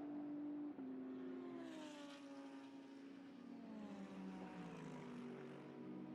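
Faint engine sound, its pitch falling in several steps and slides.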